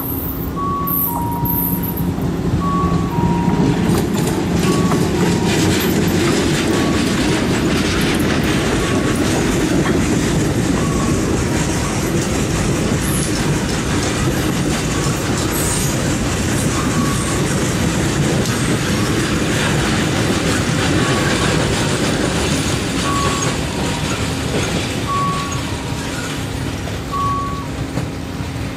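A freight train of coal hopper wagons rolling past, the wheel and wagon noise with some clickety-clack swelling about two seconds in and easing near the end. Throughout, the level-crossing warning signal sounds a repeating two-note electronic beep.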